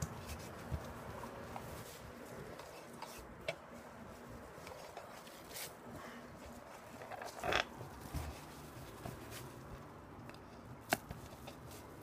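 Handling noise from a phone camera being moved and set in place: scattered light clicks and rubbing, a louder rustling scrape past the middle and one sharp click near the end.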